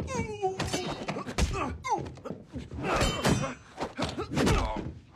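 Movie fight sound effects: several heavy thuds and blows landing one after another, mixed with men's grunts and shouts, including a shout that falls in pitch right at the start.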